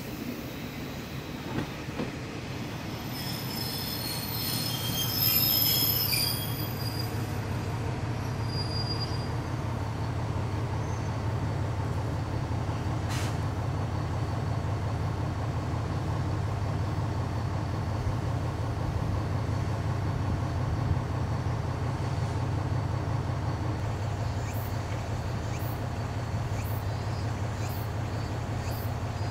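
Diesel train on the JR Dosan Line with its wheels squealing for a few seconds early on. A steady low engine rumble runs under it, and light, evenly spaced clicks come near the end.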